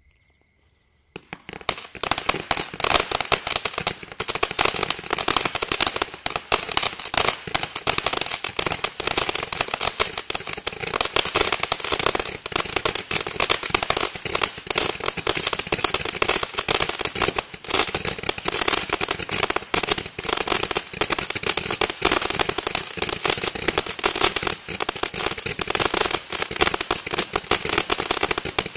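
Flame Thrower brand 'Incredible' ground firework fountain spraying sparks with a dense, continuous crackle. It starts about a second in and carries on unbroken, without any large bangs.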